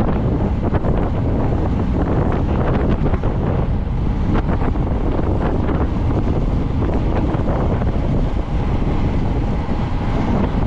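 Heavy wind buffeting the microphone at bicycle-racing speed, a steady low rush with scattered short clicks and rattles.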